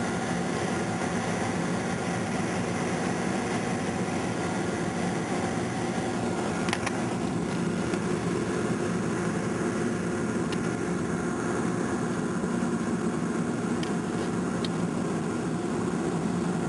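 Boeing 747-400 cabin noise in the climb just after takeoff: a steady drone of engines and rushing air, with a light click about seven seconds in.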